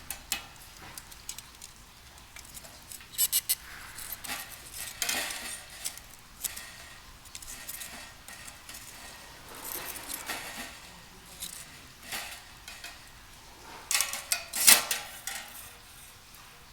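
Thin metal parts of a compact folding fire pit clinking and rattling against each other as they are handled. The clinks come in short irregular clusters, and the loudest comes near the end.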